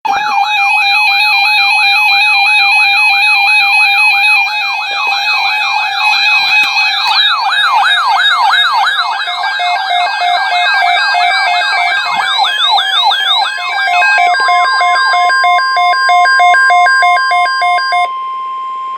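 Several NOAA weather radio receivers sounding their alert alarms at once for a tornado watch: overlapping rising-and-falling siren tones and pulsing beeps, loud throughout. Partway through, the steady single-pitch weather-radio alert tone joins in. Near the end the alarms cut off, leaving that tone quieter.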